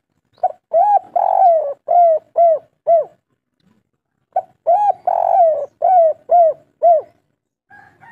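Spotted dove cooing two song phrases about four seconds apart. Each phrase is a short note and a longer drawn-out coo followed by three short falling coos: the 'kuk 3' song type.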